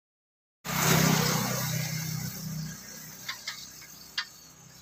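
Silence, then, from about half a second in, a motor vehicle passing close by, its engine hum fading away over a couple of seconds. Three short sharp clicks follow near the end.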